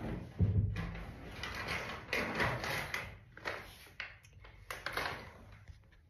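Handling noise close to the microphone: irregular rustling, scraping and light knocks of someone rummaging and moving things about, dense at first and thinning to scattered clicks in the second half.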